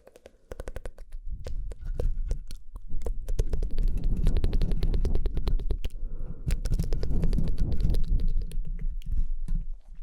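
Close-miked ASMR mouth sounds: rapid wet clicks and smacks of tongue and lips, crowded together over a low rumble. They start about half a second in and ease off briefly around six seconds.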